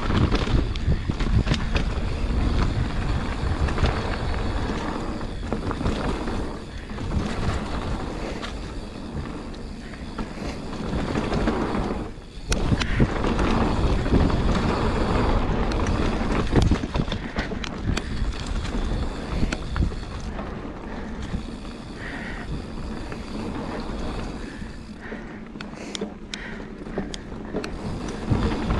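Mountain bike ridden fast down a dirt flow trail: a continuous rush of tyre and riding noise with many knocks and rattles over bumps, easing briefly about twelve seconds in.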